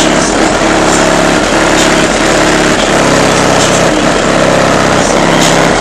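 A vehicle engine running loud and close, revved up and down over and over, its pitch rising and falling every second or two.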